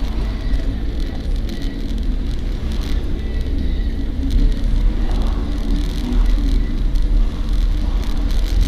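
A car driving along, with engine and road noise making a steady low rumble.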